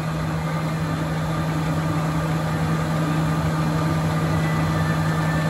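Jones & Shipman Model 1400 surface grinder running, a steady mechanical hum with an even low drone.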